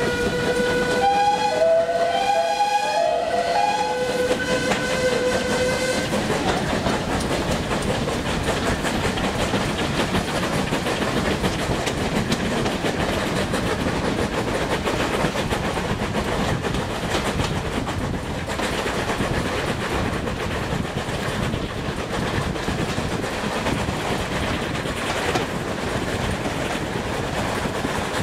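A steam locomotive's whistle blows for about six seconds, with a second, higher tone sounding in short toots over it. The train then runs on steadily, its carriage wheels rumbling and clicking over the rail joints, heard from an open carriage window.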